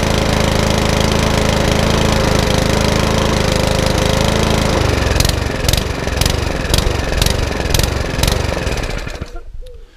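Mountfield HP164 lawnmower engine running steadily, then about five seconds in starting to falter, stumbling with sharp beats about twice a second, and dying out near the end: the engine cutting out, a carburettor fault.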